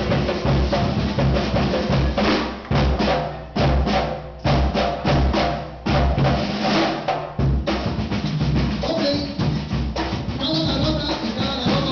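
Samba percussion band drumming a fast, driving rhythm on drums, including a metal-shelled drum, with a few brief breaks in the beat a few seconds in. A high steady tone joins near the end.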